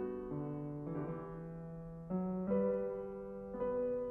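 Slow, soft piano music: sustained notes and chords struck every second or so and left to ring and fade.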